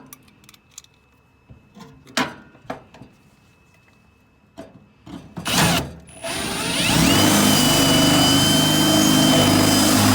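Power drill with a 5/16-inch bit starting about six seconds in and running steadily, drilling out the hole in a small metal lock piece. Before that, a few clicks and knocks of the drill and parts being handled.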